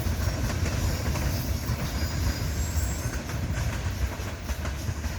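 Freight train wagons rolling past, steel wheels clattering over the rail joints over a steady low rumble that eases slightly near the end.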